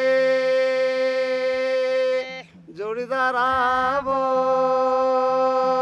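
A man singing a Garhwali folk song solo, drawing out long, steady held notes. There is a short break about two and a half seconds in, then a wavering, ornamented phrase before the next long held note.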